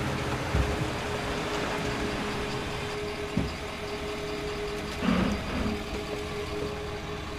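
Pickup truck engine idling steadily, with a few short bumps.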